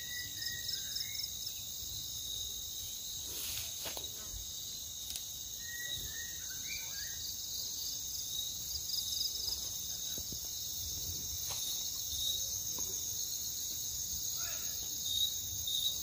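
Steady high-pitched chorus of insects, a continuous fast-pulsing trill, with a few short bird chirps at the start, about six seconds in, and near the end.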